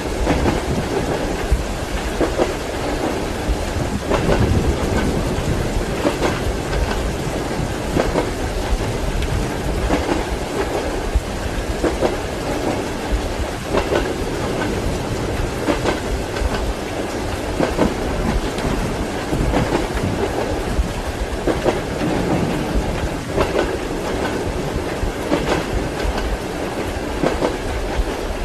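Train wheels clacking rhythmically over rail joints, under a steady hiss of rain.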